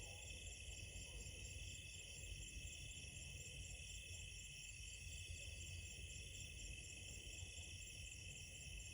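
Faint, steady chorus of crickets chirping at night, with a low background rumble.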